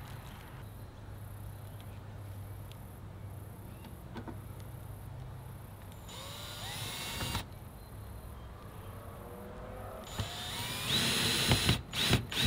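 Ryobi cordless drill driving screws into the coop's wooden frame: two short runs, each rising in pitch as the motor speeds up, the second louder and longer, then a few sharp knocks near the end.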